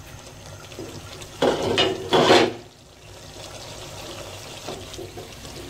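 Thick tomato-and-onion masala bubbling softly in a pan on low heat while it is stirred and mashed with a wooden spoon, frying down. A louder stir or scrape of the spoon comes about a second and a half in.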